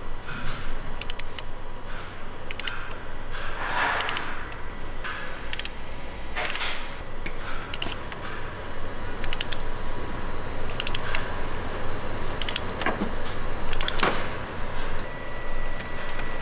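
Hand ratchet clicking in short bursts, with metal clinks of socket and tool handling, while the stripped injector clamp bolt thread in the cylinder head is worked out by hand for a Helicoil insert. Now and then a longer metal scrape comes in.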